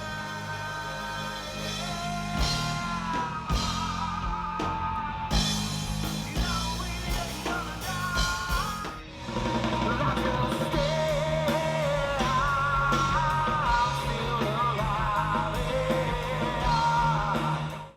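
Grunge-style rock music with a singing voice over drums and bass, getting louder about halfway through and cutting off suddenly at the end.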